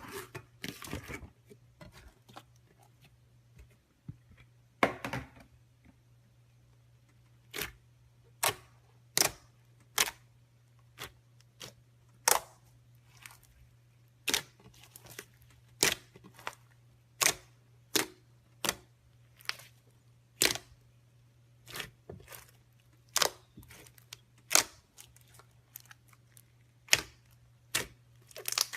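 Slime being pressed and poked, giving sharp popping clicks, roughly one a second, with a soft squish a few seconds in.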